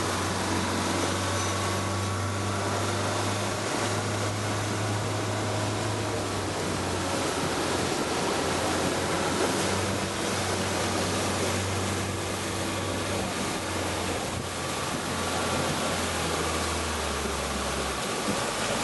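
A small tour boat's motor running steadily under a constant rush of water and wind. Its low hum drops away near the end.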